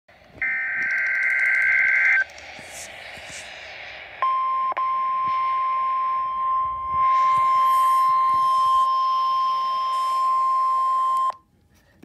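Midland NOAA weather radio receiving the National Weather Service Required Weekly Test through its speaker. A burst of high digital data tones (the SAME alert header) lasts about two seconds, then comes a little hiss, then the steady 1050 Hz NWS warning alarm tone for about seven seconds, which cuts off abruptly near the end.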